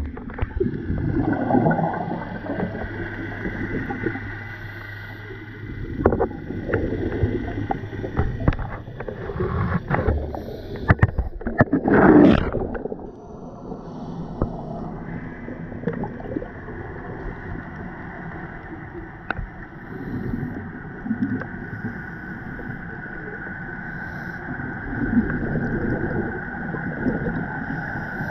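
Recorded underwater: scuba exhalation bubbles gurgle in surges every few seconds, the loudest about twelve seconds in, over a steady hum of boat engines carried through the water.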